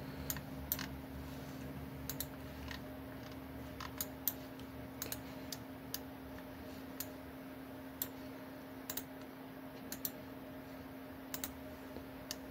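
Scattered clicks of a computer mouse and keyboard, irregular and sometimes in quick pairs, over a steady low hum.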